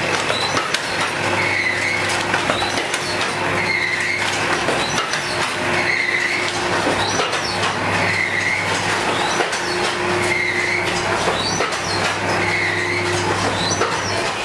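Automatic dona pattal (paper plate and bowl) making machine running: a steady motor hum with a short pressing-cycle sound repeating about every two seconds.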